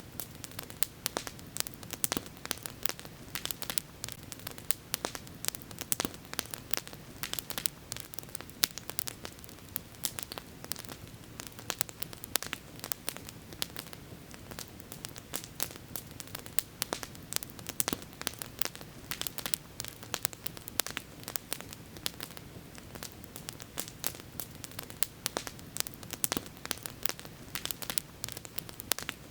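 Campfire burning with constant irregular crackling and popping, several sharp cracks a second, over a steady low hiss.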